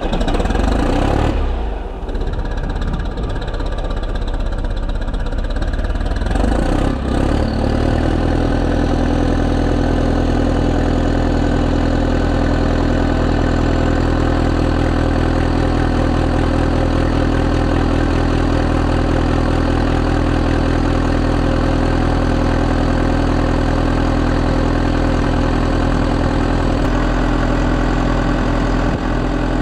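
Volvo BM 6300 backhoe loader's diesel engine running just after starting: uneven for the first few seconds, then settling into a steady idle about seven seconds in.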